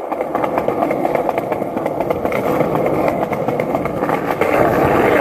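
Wheels rolling fast over a concrete sidewalk: a steady rough rumble with many small ticks.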